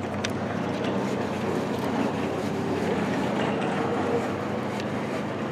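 A steady low hum under an even rushing background noise.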